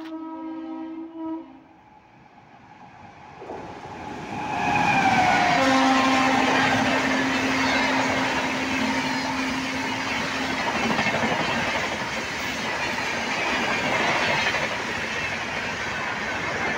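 Train horn sounding for about a second and a half, then the Rajdhani Express arriving: a second horn blast about four and a half seconds in, its pitch falling slightly as the train reaches the microphone, followed by the loud, continuous rush and wheel clatter of the coaches passing at high speed.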